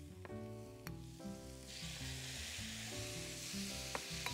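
Chopped tomatoes going into a hot frying pan of onions and spices: the sizzle swells about a second and a half in, and a spatula stirs with a few sharp clicks. Soft background music plays underneath.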